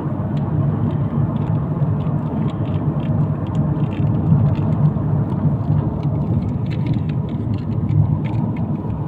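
Steady low rumble of engine and tyres heard from inside a road vehicle travelling at highway speed.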